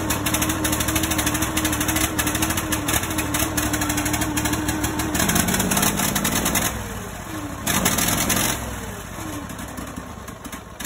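Briggs & Stratton overhead-valve garden-tractor engine running unevenly. Its pitch drops about five seconds in, and its speed sags twice near the end. The engine is not running right, from an air cleaner filling with oil, which is common on these Briggs engines and can come from a bad breather or a blown head gasket.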